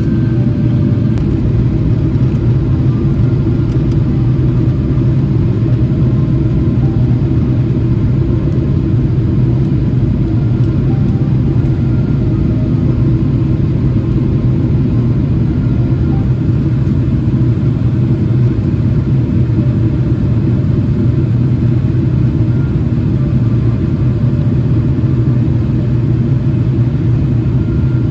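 Boeing 777-300ER cabin noise in flight: the steady, loud rumble of the engines and airflow heard from inside the economy cabin.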